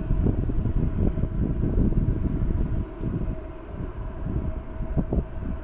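Distant Boeing 777 airliner at pushback: a faint steady whine over an uneven low rumble, which dips for a moment a little past the middle.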